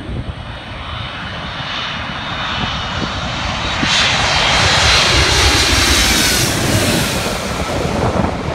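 Jet airliner passing low overhead on its landing approach, its engine noise building to a peak about five seconds in, with a falling whine as it goes past. Wind buffets the microphone underneath.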